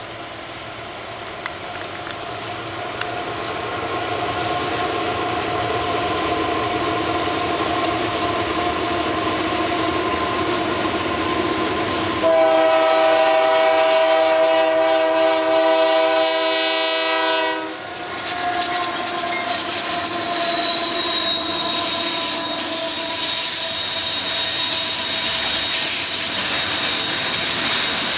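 A Union Pacific bulk commodity freight train approaching, its noise growing louder over the first several seconds. About twelve seconds in the locomotive sounds one long multi-tone horn blast of roughly five seconds. The rolling train noise then continues as the cars pass, with a thin high whine for a few seconds.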